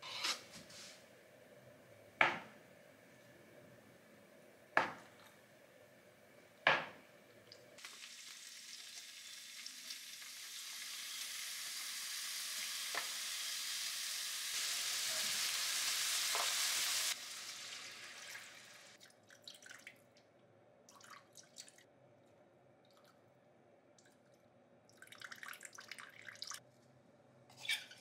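A knife clicks against a plastic cutting board four times while cutting through a block of tofu. From about eight seconds in, meat sizzles in a frying pan as it is stirred with chopsticks, growing louder for several seconds and then stopping abruptly.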